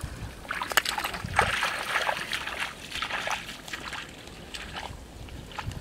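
Footsteps wading through a wet rice paddy: water sloshing and splashing in irregular bursts, with rice plants brushing. The sounds die down over the last couple of seconds.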